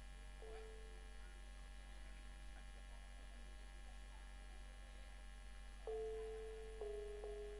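Steady electrical mains hum from a sound system, with one faint held note about half a second in. Near the end an instrument starts playing slow held notes that step down in pitch.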